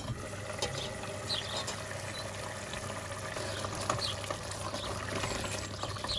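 Thick masala simmering and bubbling in a steel pot as a wooden spoon stirs it, over a steady low hum. A few short bird chirps sound in the background.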